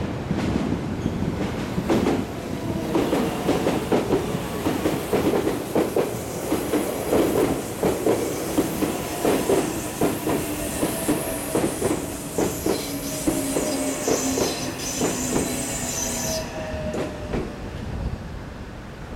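Meitetsu train passing over a level crossing, its wheels clacking over the rail joints in a steady run of knocks. Under the clacking are two faint tones that slowly fall. A high hiss stops suddenly about three seconds before the end.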